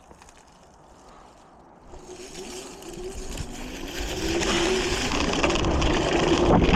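Electric bike riding off: the motor's hum and the rush of wind and tyres build from about two seconds in as it picks up speed, with a brief louder rush near the end.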